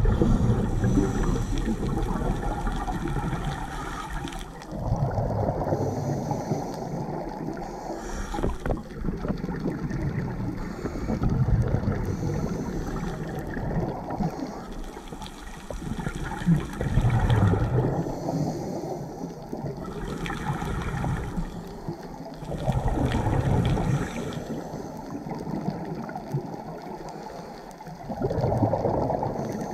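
Scuba regulator breathing recorded underwater: a hiss on each inhale and a rushing, gurgling surge of exhaust bubbles on each exhale, repeating about every six seconds.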